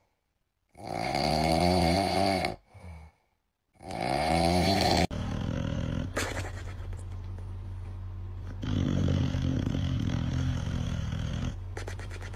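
A sleeping French bulldog snoring: two long snores about two seconds apart, followed by a quieter, steadier stretch of sound.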